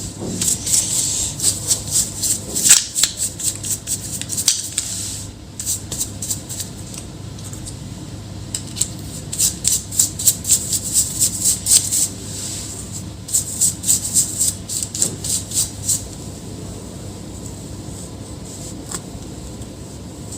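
Quick runs of small clicks and scratches from hand work on an opened laptop, coming in three spells with short pauses between, over a low steady hum.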